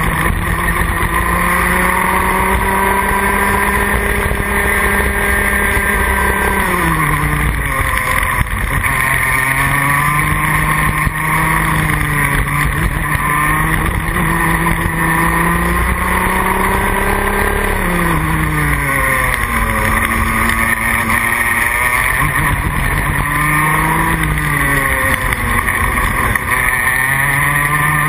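Junior Rotax kart's single-cylinder two-stroke engine heard onboard at racing speed, its revs holding high on the straights, falling sharply into the corners and climbing again, several times over.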